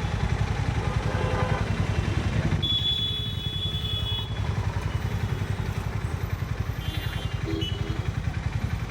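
Harley-Davidson X440's single-cylinder engine running at steady cruising speed with an even, fast thumping beat. It eases off slightly about three seconds in, while a high steady tone sounds for about a second and a half.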